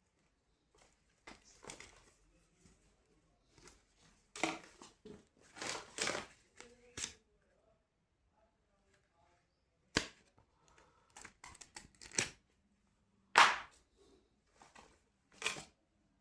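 Handling noise from unboxing leather riding gloves: intermittent rustling with a few sharp snaps or clicks, the loudest about two-thirds of the way through.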